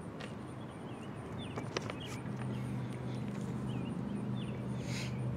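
Small birds chirping in short, scattered calls, with a few light clicks. A low steady hum comes in about two seconds in.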